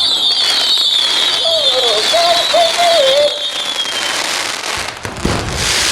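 Fireworks going off: a long high whistle that slides slowly down in pitch for about four seconds, with crackling, then a sudden loud burst about five seconds in.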